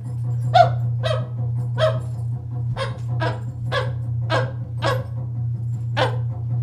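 A man's voice making short, sharp animal-like barking calls, about nine of them at uneven intervals, over a steady low hum.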